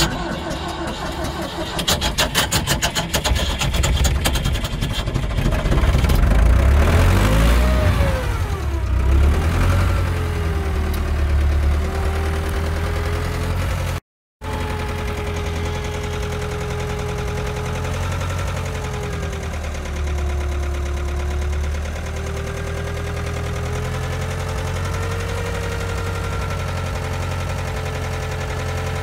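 Ford 5000 Super Major's diesel engine cold-starting at −10 °C on glow plugs alone, without pre-heat: a few seconds of cranking and uneven firing, then a surge of revs that rises and falls, then a steady idle.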